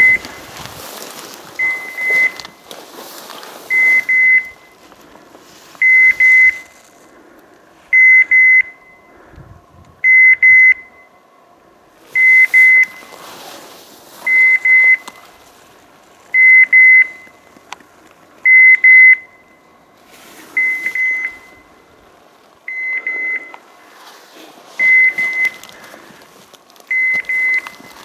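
A pointing dog's beeper collar sounding short, high double beeps about every two seconds, over faint rustling of brush.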